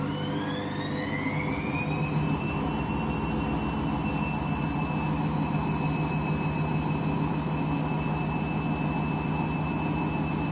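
Candy washing machine spinning: the motor's whine rises in pitch as the drum speeds up over the first couple of seconds, then holds steady at spin speed over a steady rumble. The load is half a load of bedding, which the owner afterwards calls very out of balance.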